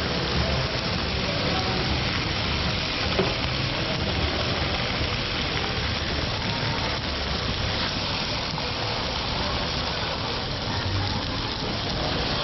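Meat sizzling on a hot grill in a steady crackling hiss, with people talking in the background.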